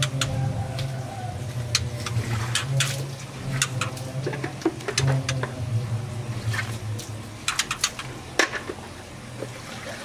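White-rumped shamas giving scattered short, sharp tick calls, some in quick runs, over a steady low hum.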